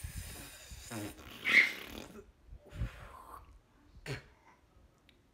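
A man blowing air through pursed lips, trying to whistle: a few short, breathy, sputtering puffs without a clear whistle tone, the loudest about a second and a half in.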